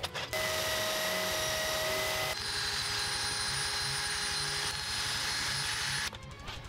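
Cordless drill running, spinning a small brass disc on a mandrel against a sheet of sandpaper: a steady motor whine with a sanding hiss. It starts just after the beginning, its tone shifts about two seconds in, and it stops about six seconds in.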